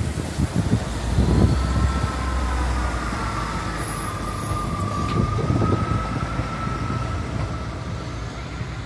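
Class 158 diesel multiple unit pulling away under power, its underfloor diesel engine rumbling with a wavering whine over it. It grows fainter near the end as it draws off.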